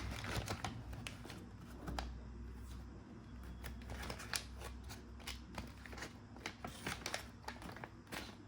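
Faint rustling and scattered light clicks of a sealed delivery packet being handled and turned over.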